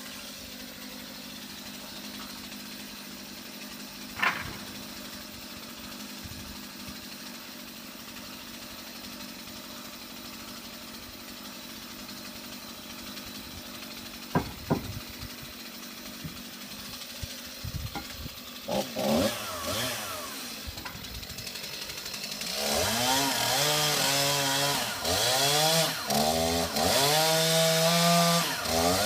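Chainsaw catching after a few short bursts about two-thirds of the way in, then revved up and down repeatedly at full volume. Before that, only a steady low background with a couple of sharp knocks.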